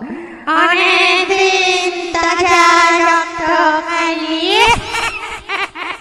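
Ghostly horror sound effect: a high, sung voice holds one wavering, warbling note, slides upward near the end and breaks off into short stuttering notes.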